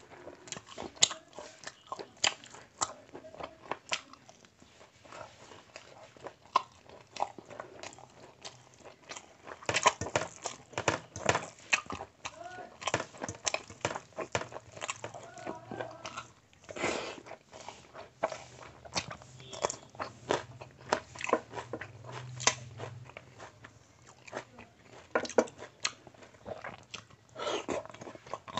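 Close-miked eating by hand: wet squishing of basmati rice and curry mixed with the fingers on a steel plate, with irregular sharp clicks and smacks of chewing.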